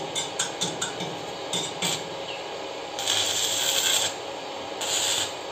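Stick (arc) welding on steel: a few light taps and scratches of the electrode, then the arc sizzling with a crackling hiss for about a second, and again briefly near the end.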